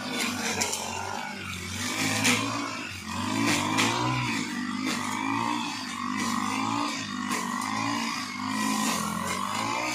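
A backpack brush cutter's small petrol engine runs continuously, its pitch rising and falling as the blade works through tall grass. Scattered sharp strikes can be heard over the engine.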